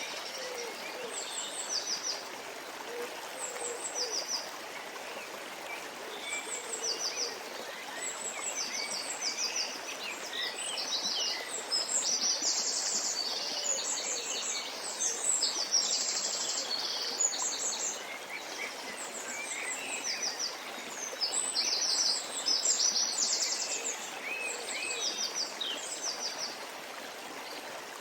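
Stream water flowing steadily while birds call over it. High, fast-pulsed trills repeat again and again, denser in the middle, with a few low hooting calls in the first few seconds.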